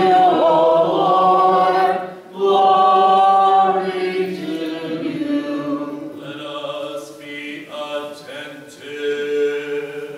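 A congregation singing a slow a cappella liturgical chant together: the sung response to the announcement of the Gospel. There is a short pause about two seconds in, and the singing grows softer toward the end.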